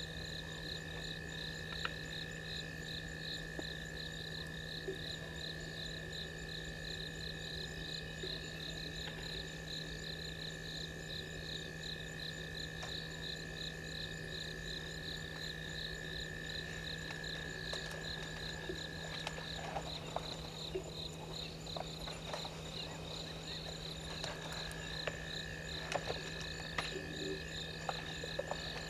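Night chorus of insects and frogs: a fast pulsing high trill and steady shrill tones over a continuous low drone. One steady tone drops out for a few seconds about two-thirds through. From the middle on, scattered sharp cracks and snaps sound over it.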